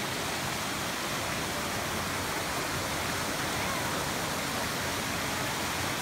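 Rainforest stream cascading over boulders in small falls: a steady rush of falling water.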